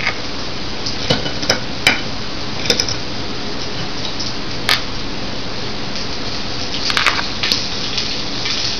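A fork clicking and scraping against a plate several times as fried fish is cut, over a steady sizzling hiss of a fish fillet frying in a pan.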